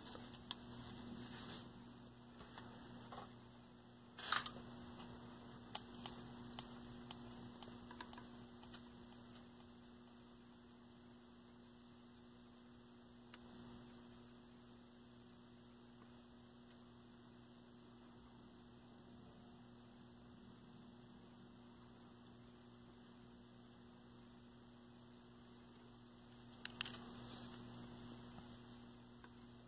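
Near silence with a steady low electrical mains hum. There are a few light clicks and taps in the first several seconds and again near the end.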